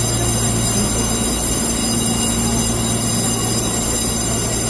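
Taiwan Railway EMU3000 electric multiple unit standing at the platform, its onboard equipment giving a steady hum with a low drone and several thin high tones.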